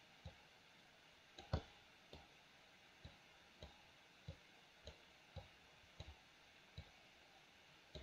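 Computer mouse buttons clicking, faint and sharp, about a dozen clicks at uneven intervals of roughly half a second to a second, the loudest about a second and a half in.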